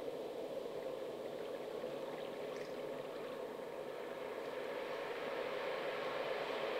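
Playback of a field recording of the South Florida coastline: a steady noise that swells slightly near the end.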